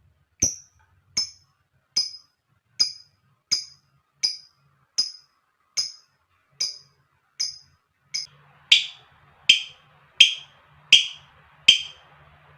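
Lovebird giving a long run of short, sharp chirps, evenly spaced at a little over one a second. After about eight seconds the chirps turn louder and lower.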